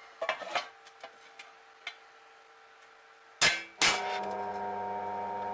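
Workshop knocks: light taps and clicks, then two loud, sharp hammer-like knocks in quick succession about three and a half seconds in. Right after them a steady hum with several tones starts.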